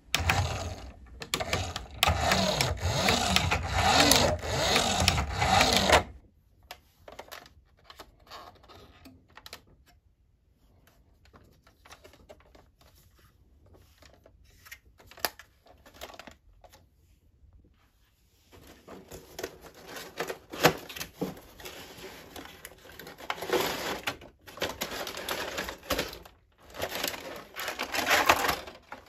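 A toy RC bus's small electric motor and plastic gears run loudly for about six seconds. Faint clicks of plastic toy parts being handled follow. From about two-thirds of the way in, a clear plastic wrapping crinkles and rustles as it is pulled off.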